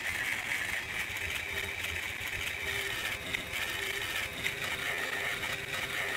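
Battery-powered toy Thomas engine running along plastic track, its small electric motor and gears whirring steadily, with a few light clicks.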